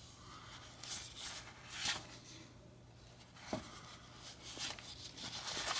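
Faint handling noises from work on the tape deck's parts: a few light scrapes, a sharp click about three and a half seconds in, and rubbing that grows near the end.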